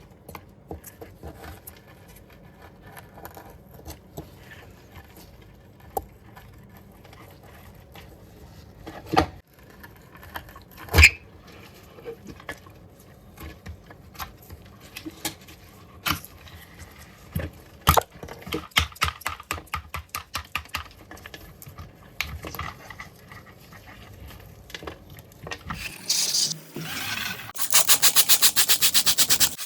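Hand cleaning work on a dirty JCB excavator: scattered taps, knocks and scrapes of tools on the machine, with a few louder knocks. About two seconds before the end a loud, fast, even rattle sets in and keeps going.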